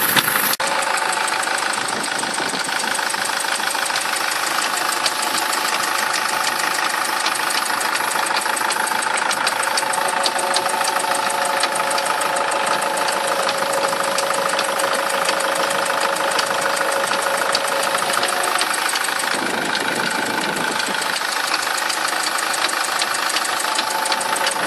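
SsangYong Kyron engine running steadily with a rapid, even ticking knock over it: an unexplained foreign knock, heard as click-like, that the owner cannot identify.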